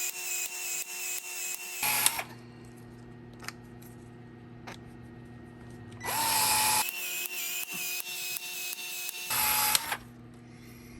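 Handheld battery power tool run in two bursts of a few seconds each, the motor whining with a regular pulsing. A steady low hum fills the gap between the bursts.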